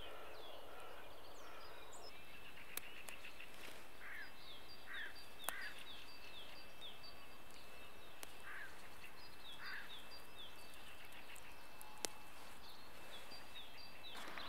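Birds chirping and calling in short repeated notes over a steady outdoor hiss, with a couple of sharp clicks.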